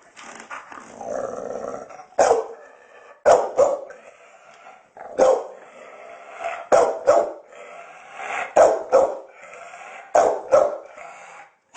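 Pit bull barking on command: about ten short, sharp barks, several coming in quick pairs, with growly grumbling between them.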